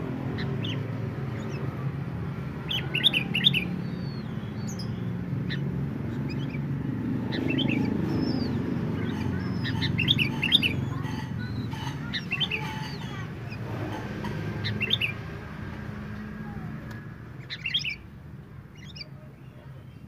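Caged sooty-headed bulbuls, a male and a female in breeding condition, giving quick clusters of short, sharp chattering calls every few seconds, over a steady low rumble.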